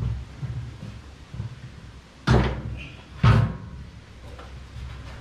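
A VW Super Beetle's steel fuel tank being shifted in its well in the front compartment, knocking against the car's body: a few light knocks, then two loud thumps about a second apart.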